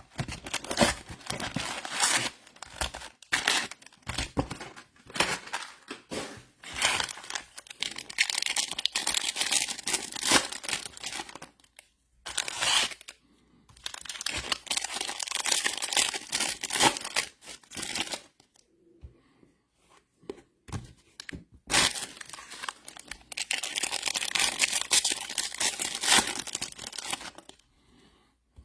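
Trading card pack wrappers being torn open and crinkled by hand, in crackly bursts with a couple of short pauses.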